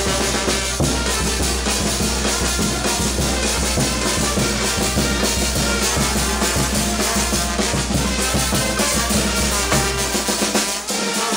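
Live band music with the percussion section to the fore: drum kit with bass drum, snare and cymbals playing a dense, driving rhythm.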